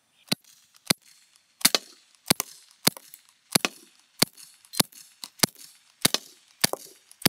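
Daisy Powerline 415 CO2 BB pistol fired shot after shot in semi-automatic, about a dozen sharp pops evenly paced a little over one a second.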